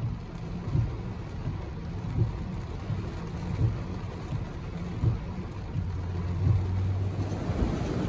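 Heavy rain pouring down on a flooded street while gusty wind buffets the microphone in uneven low rumbles. A car approaches through the water, its low engine hum plainest toward the end.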